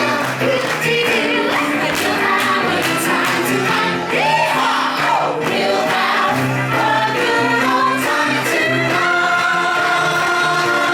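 Several voices singing a song together over instrumental accompaniment, ending on a long held note.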